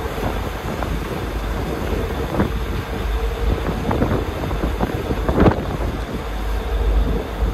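Ferry underway: its engines run steadily with a constant mid-pitched hum under a low rumble, while wind buffets the microphone, with a few short louder gusts, the strongest about five and a half seconds in.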